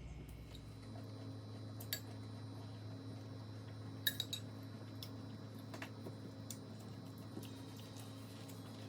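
A few light clinks of cutlery against dishes, the loudest cluster about four seconds in, over a steady low hum.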